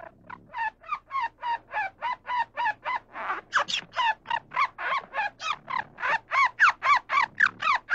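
A bird calling in a rapid series of short, pitched calls, about three or four a second, louder in the second half.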